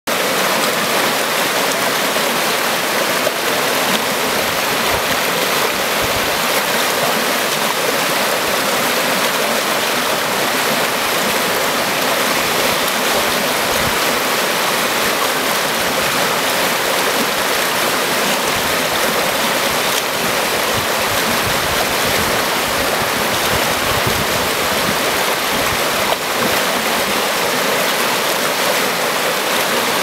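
A shallow, rocky river rushing over rapids: a steady, loud roar of white water tumbling over rocks.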